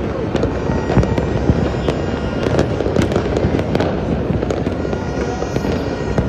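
Many fireworks going off at once: a dense, continuous crackle of pops and bangs with no gaps.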